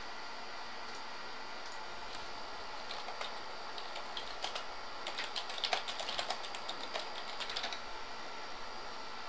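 Typing on a computer keyboard: a run of quick key clicks, densest in the middle, over a steady background hiss.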